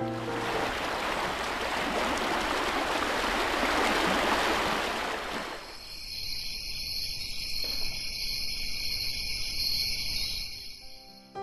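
VTech Myla the Monkey soother playing its trickling-stream sound, a steady rushing of water. About six seconds in it switches to its crickets-on-a-summer-night sound, a steady high chirring of crickets that fades out near the end.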